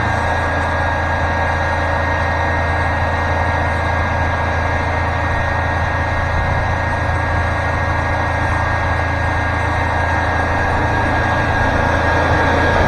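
The sawmill's 40-horsepower turbo diesel engine running steadily at an even hum, with a thin steady whine above it.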